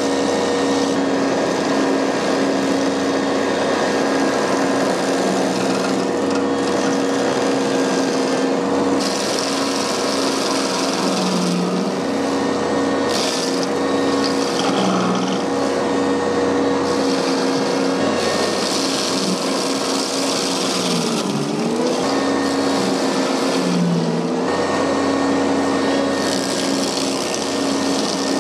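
Ventrac 4520's three-cylinder Kubota engine running steadily under load while its front stump grinder's toothed wheel chews into a tree stump, with repeated bursts of harsh grinding as wood chips and soil are thrown out. Twice near the end the engine note sags briefly and recovers as the grinder bites deeper.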